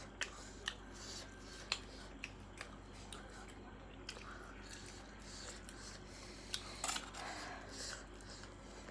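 Close-up eating sounds: crisp chewing of crunchy snack food, heard as scattered small clicks and crunches, with a brief louder cluster a little past the middle.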